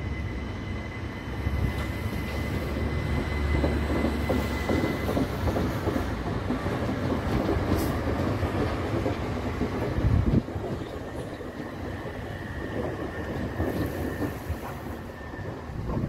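Southern Class 377 Electrostar electric train running past on the rails, with a continuous rumble of wheels on track. A steady high whine holds for the first few seconds and comes back later. The heavy low rumble drops away suddenly about ten seconds in.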